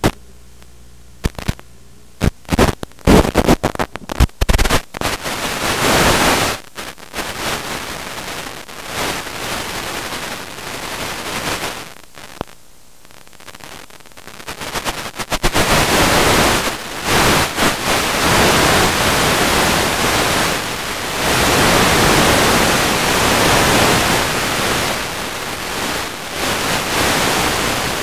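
Radio static from an analog FPV video receiver as the downlink breaks up: sharp crackles over the first few seconds, then a steady hiss that swells louder after about fifteen seconds, once the craft has crashed and lies upside down with a weak signal.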